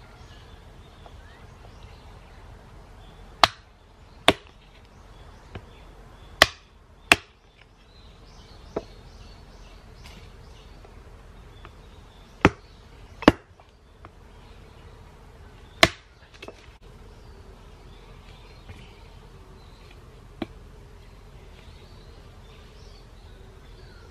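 Hatchet chopping small firewood on a wooden block: seven sharp chops, mostly in pairs about a second apart, with a few lighter knocks between them. Insects buzz steadily in the background.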